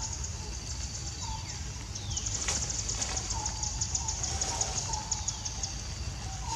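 Forest insects trilling in a fast, even pulsing chorus that grows louder about two seconds in. A short call repeats about twice a second, and there are a few faint falling whistles.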